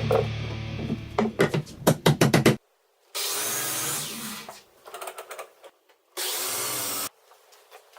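A power tool on wood runs in two short bursts of about a second each, one around three seconds in and one around six, with scattered knocks and clatter of wood between them. The first couple of seconds hold a quick run of knocks.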